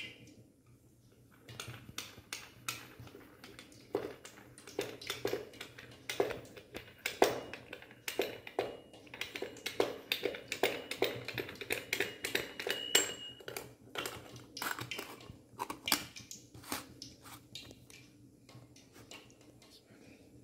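Stainless-steel screw-type chakli press being cranked: rapid, irregular metallic clicks and scrapes as the handle turns the threaded rod, starting a second or two in.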